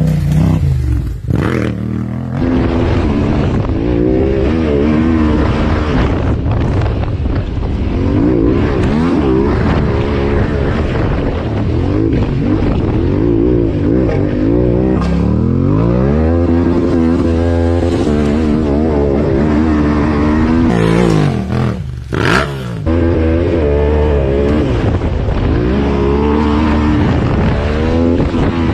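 Yamaha Ténéré 700's parallel-twin engine under way off-road, revving up and down again and again as the rider works the throttle and gears.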